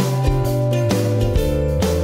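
Background music: an upbeat instrumental track with acoustic guitar strumming over a steady beat.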